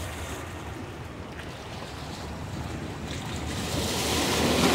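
Wind buffeting the microphone over choppy water lapping below, a steady rushing noise with a low rumble that swells louder in the last second or so.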